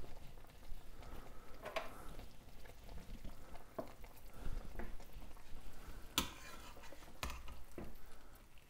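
Stockpot of boiled chicken still bubbling faintly just after the burner is shut off, with paper towels rustling and a few sharp clicks of stainless steel tongs against the pot, two of them near the end as the chicken is lifted out.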